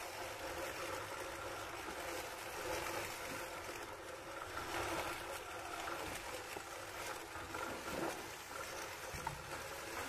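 Electric sheep-shearing handpiece running steadily as it cuts through the fleece, a constant motor hum with a hiss over it.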